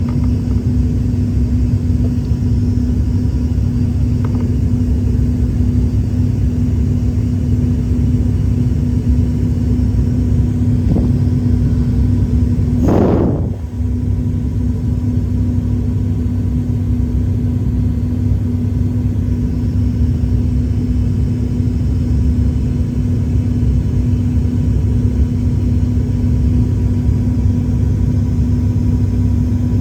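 Airliner cabin noise on the descent: a steady low drone of the engines and airflow with a constant hum tone. There is a short whoosh about halfway through.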